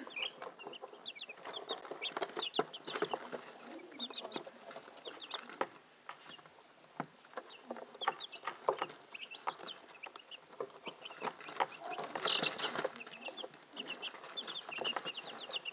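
A brood of young Ameraucana chicks peeping in many short, high chirps, with frequent sharp taps from their beaks pecking at the plastic waterer tray.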